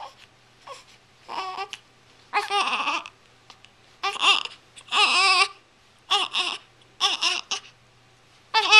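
A series of about seven high-pitched, wavering cries, each under a second long, with short pauses between; the last one begins near the end and is the loudest.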